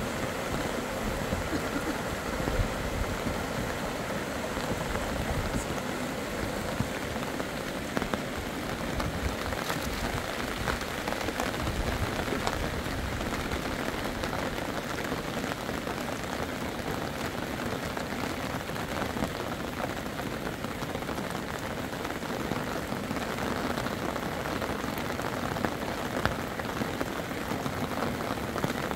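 Steady rain falling, a dense even wash of many small drop impacts that holds without a break.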